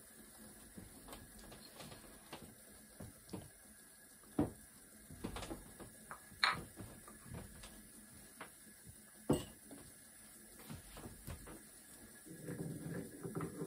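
Scattered light clinks and knocks of small vessels and utensils being handled on a workbench, with three sharper knocks about four, six and a half and nine seconds in. Near the end a busier, rougher handling sound begins.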